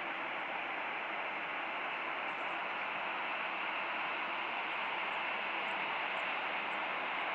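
Boeing 737-800's CFM56-7B jet engines running at taxi power, heard from afar as a steady, even hiss that grows slightly louder.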